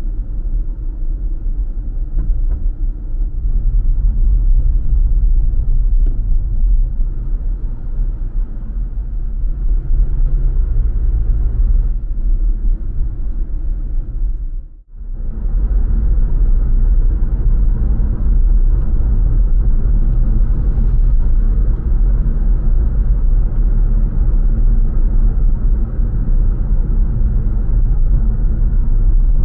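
Car driving, a steady low road and engine rumble, which briefly drops out about halfway through before carrying on.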